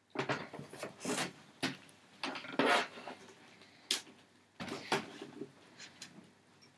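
Handling noise of a Tektronix 5103N oscilloscope's metal cabinet being lifted, turned and set down on bedding: an irregular series of knocks, bumps and rubbing rustles, loudest about two and a half seconds in.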